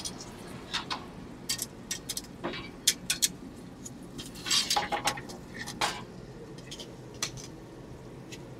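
Stainless steel sauté pans and metal tongs clinking and clanking as pans are slid into and taken out of a restaurant range's oven. Scattered sharp metal clinks, busiest about four to five seconds in.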